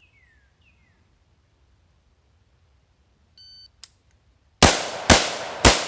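Shot-timer start beep, then three AR-15 carbine shots fired in quick succession about half a second apart, each followed by ringing echo.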